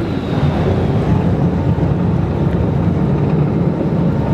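Fishing boat's engine running steadily under a constant rushing noise of water and wind.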